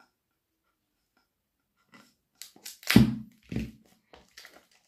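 Plastic shrink-wrap film on a product box being cut with a knife and pulled off: after a near-silent start, a run of crinkling, crackling rustles begins about two seconds in, the loudest two near the middle.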